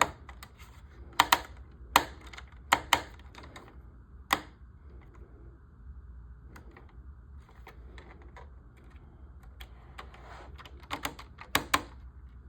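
Sharp clicks and taps of a small screwdriver against the screws and parts of a model kit as screws are tightened: a run of clicks in the first few seconds, a quieter stretch, then another quick run near the end.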